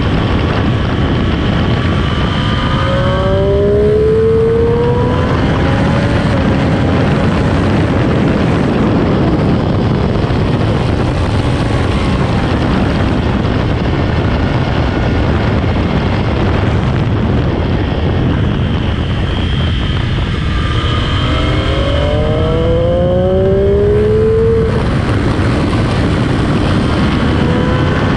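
Sport motorcycle on stock exhaust running at speed on a race track, under a steady rush of wind. The engine pitch climbs twice, once about three seconds in and again about twenty seconds in, and each climb cuts off suddenly after a few seconds.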